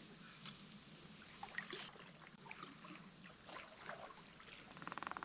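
Near silence: faint river ambience with a few soft ticks, and a faint rapid clicking that starts and grows louder near the end.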